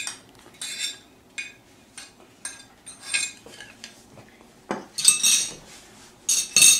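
A metal fork clinking and scraping against small glass dishes and a serving platter as food is dished out. About a dozen short, irregular clinks, the loudest coming about five seconds in and again near the end.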